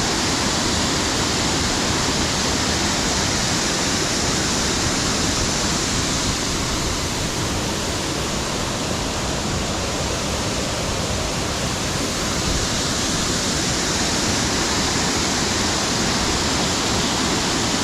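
Waterfall heard close up: a steady, loud rush of white water pouring out from under a road and dropping down.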